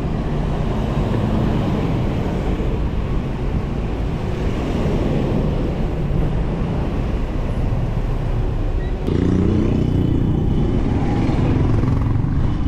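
Motorcycle engine running while riding, with road and wind noise; the engine gets louder about nine seconds in.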